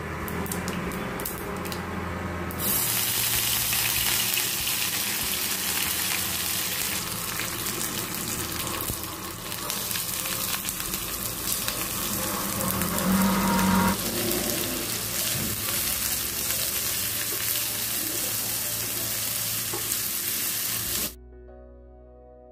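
Hot oil sizzling in a nonstick frying pan as a tempering of seeds, curry leaves, green chillies and sliced onions fries and is stirred. The sizzle grows louder about two and a half seconds in and cuts off about a second before the end, giving way to soft background music.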